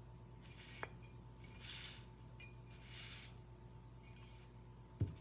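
Faint scraping and rustling of ceramic pieces and a paintbrush being handled on a paper-covered table: four short soft strokes and one small tap a little under a second in, over a steady low hum.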